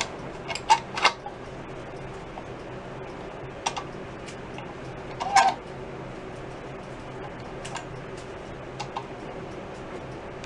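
A scattered handful of light clicks and knocks from hands working a C-clamp and wood block against a wooden snare drum shell being clamped for glue, over a steady low hum.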